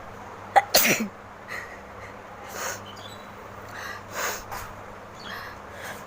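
A woman sneezes once, sharply and loudly, about half a second in. A few quieter breathy sounds follow.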